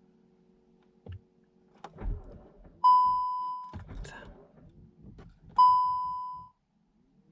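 Volkswagen Golf R dashboard warning chime sounding twice, each a single clear tone just under a second long that fades away, about two and a half seconds apart, with a few soft knocks before and between them. The car has a low battery and will not turn over.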